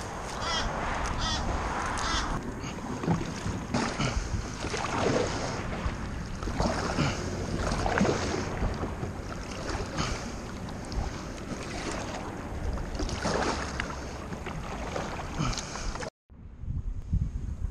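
Kayak paddle strokes dipping and splashing in calm water, roughly one every second, over wind on the microphone. The sound drops out for a moment near the end.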